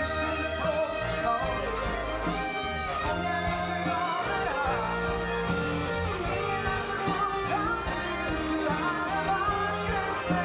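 Big band playing live, with guitar prominent among the horns, in a continuous passage with no pauses. A male singer's voice comes in near the end.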